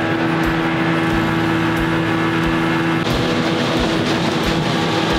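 Outboard motor running steadily as the fishing boat travels across the water, with a low regular thump about every two-thirds of a second. About three seconds in, a rush of wind and water grows louder over the engine.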